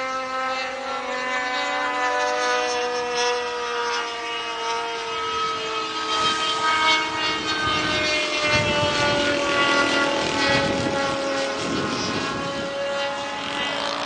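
Radio-controlled model airplane in flight, its small engine and propeller droning steadily, the pitch drifting slowly up and down as it flies past.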